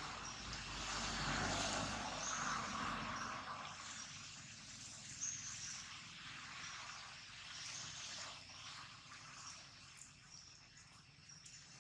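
Outdoor ambience: a steady hiss of background noise with a low rumble that fades out after the first few seconds, and a few faint high chirps.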